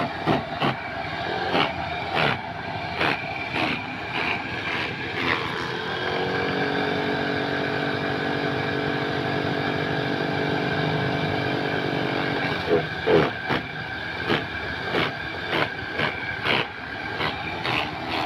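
Mini livestock-feed chopper machine running, its motor sounding steadily. Sharp knocks come about every half second for the first six seconds, stop, then start again about twelve seconds in.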